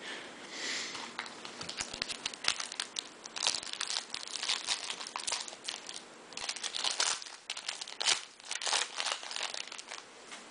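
Foil wrapper of a Bowman Jumbo baseball card pack crinkling and tearing as it is worked open by hand, in a run of short crackly rustles.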